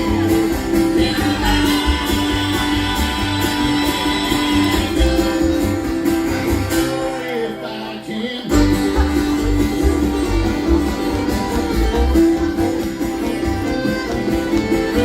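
Folk-bluegrass band playing an instrumental passage: acoustic guitar over a steady beat, with long held melody notes. About seven seconds in, the low end and beat drop out for roughly a second, then the full band comes back in.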